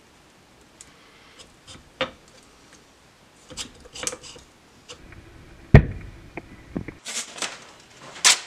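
Light metallic clicks and knocks of a piston with its rings being worked by hand into a Harley-Davidson Panhead cylinder, with one loud knock a little past halfway. Near the end comes a papery rustling of wiping.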